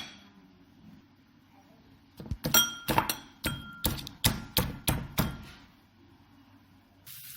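A pestle pounding crab legs in a mortar: about ten sharp, ringing strikes, roughly three a second, crushing the shells and meat for the soup.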